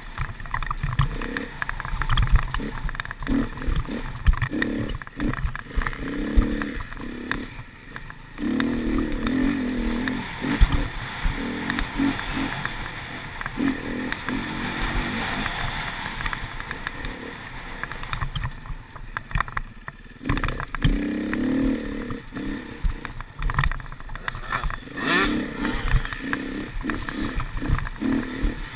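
Enduro dirt bike's engine revving up and down as the throttle is opened and closed repeatedly along a bumpy forest trail, with frequent short knocks and steady wind noise on the microphone.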